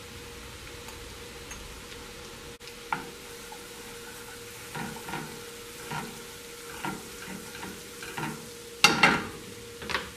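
Garlic butter sizzling in a frying pan while a wooden spatula stirs it, scraping the pan in a run of short strokes from about halfway, with one louder knock near the end.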